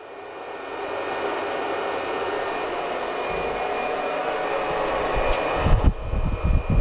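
Bitmain Antminer S19J Pro's cooling fans ramping up to 100% at startup inside an insulated food-cooler enclosure: a steady rush of air that swells over the first second, with a faint steady whine on top. Near the end, low gusty rumbles of moving air hit the microphone.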